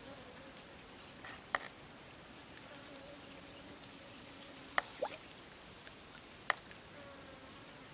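Fish in a shallow muddy pool gulping air at the surface, making a few short wet pops, two close together about five seconds in, over a faint high steady trill.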